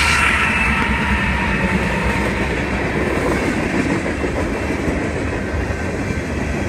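A BNSF manifest freight train rolling past, with a steady rumble and clatter of its wheels on the rails. A faint high squeal fades out within the first second or so.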